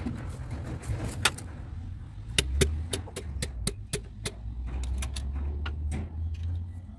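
Irregular sharp metallic clicks and clinks of hand tools and a wrench working against a bare engine block and piston, clustered in the middle, over a steady low rumble.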